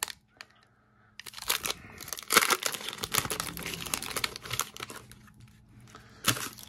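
Foil trading-card pack wrapper being torn open and crinkled by hand, a dense crackling that starts about a second in, with one sharper crackle near the end.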